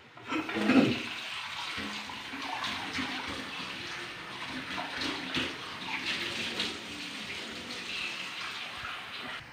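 Water running steadily from a kitchen tap into a sink, turned on just after the start and shut off near the end.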